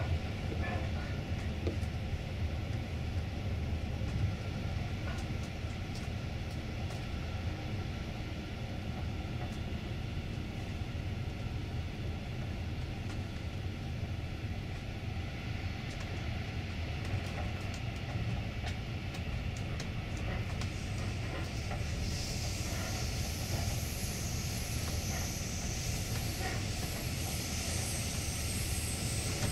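Freight train running on the rails, a steady low rumble of wagons and wheels with a few sharp clicks. About two-thirds of the way through, a high hiss comes in over the rumble and continues to the end.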